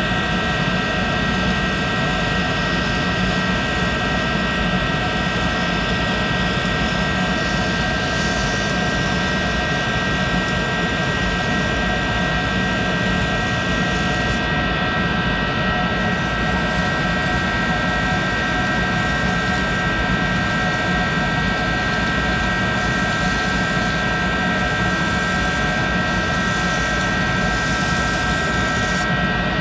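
Monarch 10EE lathe running steadily with its spindle turning: the motor-generator DC variable-speed drive gives a constant hum with several steady high whining tones.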